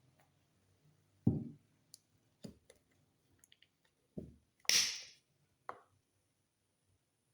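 Scattered knocks and taps of kitchen utensils and cookware being handled, about four dull thuds with a few light clicks between them. About halfway through comes one louder, short scraping hiss.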